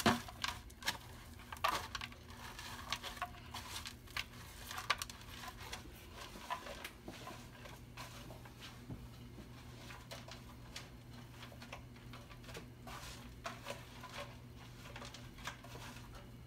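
Crushed Hot Cheetos crunching and crackling as a chicken wing is pressed and rolled in a plastic bowl of the crumbs by hand: irregular small crackles, busiest in the first few seconds, over a low steady hum.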